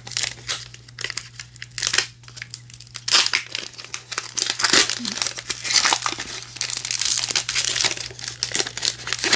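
Hands crinkling and tearing open the plastic wrapper of a 2022 Topps Gypsy Queen baseball card pack: a stiff wrapper that is hard to open. The crackling rustles are irregular and grow louder in the second half as the wrapper tears open.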